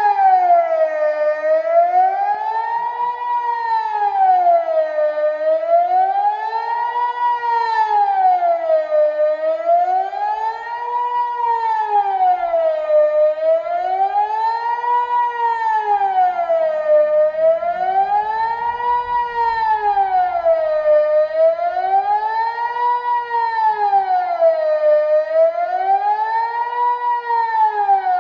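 Kockum Sonics Delta 4 civil-defence siren sounding the Swiss general alarm test signal: one loud wailing tone rising and falling smoothly in pitch, about one cycle every four seconds.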